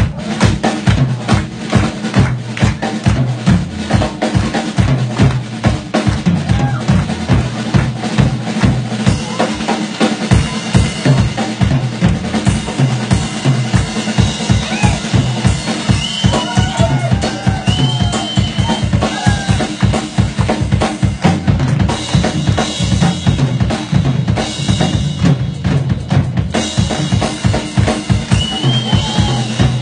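Drum solo on a drum kit, played live: fast, busy strokes on the kick drum and snare, with steady low tones sounding underneath.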